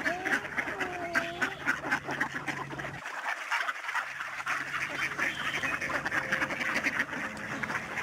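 A large flock of mallards quacking and chattering, a continuous din of many overlapping calls.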